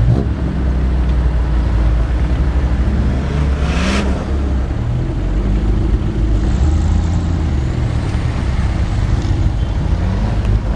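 Engine of a lifted 4x4 working slowly through a deep mud hole, its revs rising and falling repeatedly under load as the wheels climb and drop. A brief sharp noise comes about four seconds in.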